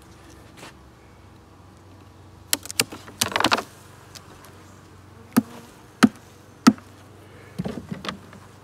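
Wooden beehive parts that are stuck down being knocked and pried loose. There are sharp wooden knocks, a brief crackling scrape, three evenly spaced knocks about two-thirds of a second apart, and a last flurry near the end, over the steady buzz of honeybees.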